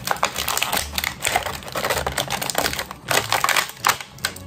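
Thin clear plastic packaging crinkling and crackling as it is handled, a fast, uneven run of sharp crackles. The loudest crackles come at about three and four seconds in.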